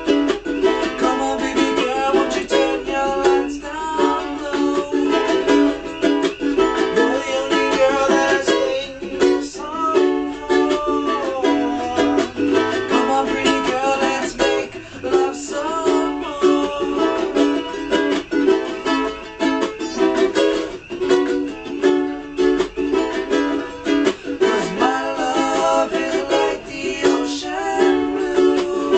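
Two ukuleles strummed together through a song, with a man's voice singing over them in parts.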